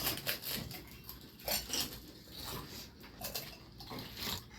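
Pani puri being eaten: crisp puri shells crunching and being chewed in short, irregular crackles and clicks.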